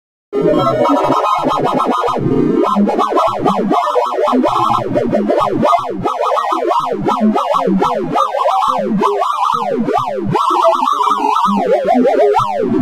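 Sonified gnome sort: a fast, unbroken stream of synthesized beeps whose pitch follows the values of the bars being compared and swapped, zigzagging up and down. It starts after a brief silence and runs into quick descending sweeps near the end.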